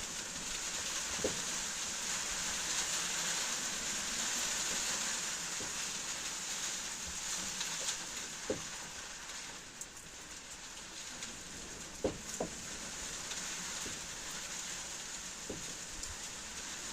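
Steady rain falling, an even hiss with a few sharp taps standing out from it now and then.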